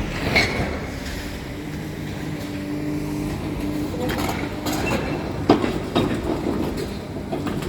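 Heavy demolition machinery running steadily with a diesel engine drone, with a few sharp knocks and crashes of the building being broken up, the loudest about five and a half seconds in.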